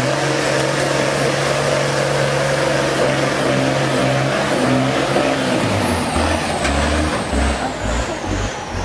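M35A2 deuce-and-a-half army truck's turbocharged multifuel inline-six engine running hard under load as the truck pulls out of deep mud, a steady engine note. About six seconds in the engine note fades, and uneven low rumbling and a high whine falling slowly in pitch take over as the truck drives away.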